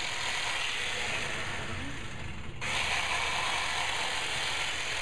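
Motor-driven massage equipment running steadily with a mechanical whirr. It goes briefly quieter a little after two seconds, then comes straight back to full strength.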